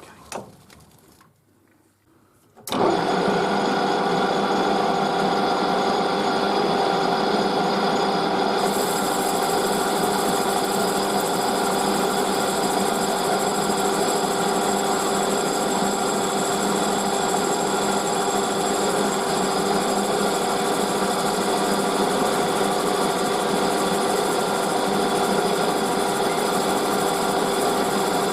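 Metal lathe switched on about three seconds in, then running steadily with a whine made of several steady tones; a higher hiss joins about nine seconds in.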